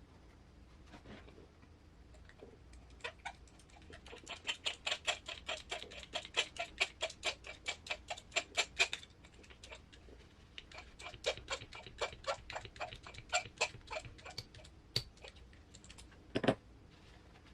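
Two runs of quick small clicks, about four a second, then a single louder knock near the end, from the small parts and tools of an RC crawler transmission being worked by hand.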